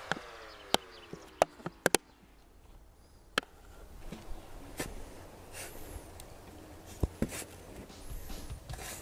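Quiet outdoor ambience with scattered sharp clicks, several close together in the first two seconds, and a few faint high chirps.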